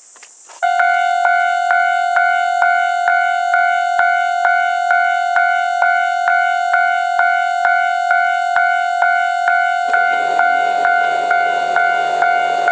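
Japanese railway level-crossing alarm bell starts about half a second in and rings steadily, about two strikes a second over a held tone. About ten seconds in, the low rumble of the approaching JR West 223-series train joins it.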